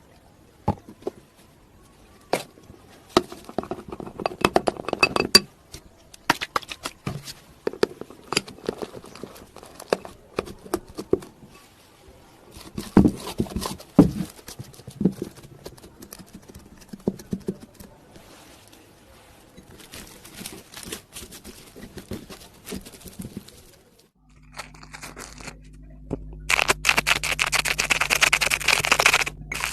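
Shampoo slime being worked by hand: scattered sticky clicks, pops and crackles. A steady low hum comes in near the end, followed by dense, loud crackling.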